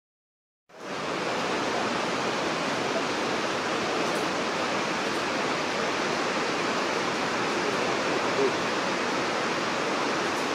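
Whitewater Falls rushing: the steady, even noise of a large waterfall and its cascade over boulders. It comes in quickly out of silence about a second in.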